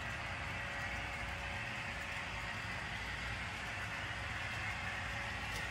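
HO scale model trains running on the track: a steady whir of small locomotive motors and wheels, with a faint steady hum.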